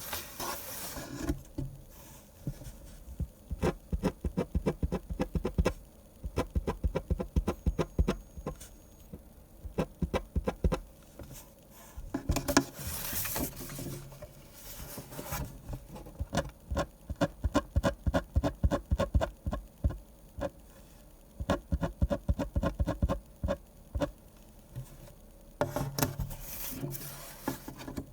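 Pen drawing manga on paper: runs of quick short strokes, like hatching, with a few longer scraping strokes, once right at the start, once about halfway and once near the end.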